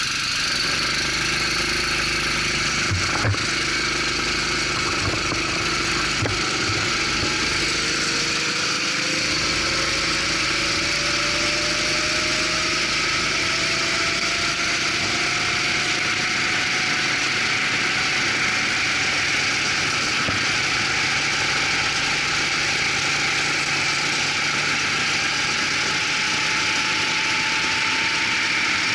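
Racing kart engine heard from on board, running at low speed at first, then pulling away and accelerating, its pitch rising slowly and steadily as speed builds.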